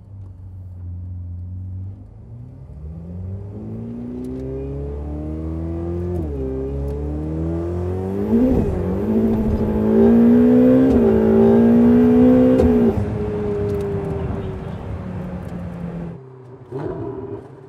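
The stock-exhaust twin-turbo 3.9-litre V8 of a Ferrari 488 Pista, heard from inside the cabin under hard acceleration. The engine pitch climbs, drops at quick upshifts about six and eight and a half seconds in, then climbs again to its loudest before falling away. Near the end the sound cuts abruptly, followed by a short rev.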